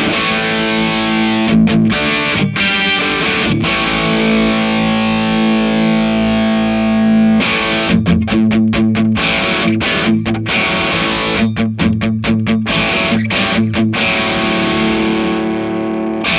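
Electric guitar played through a Marshall JCM2000 DSL100 valve amp head on its overdrive channel, which works again after a main circuit board replacement, with distorted crunch set for a JCM800-ish sound. Held chords, then about halfway through choppy stop-start riffing, and near the end a chord left to ring.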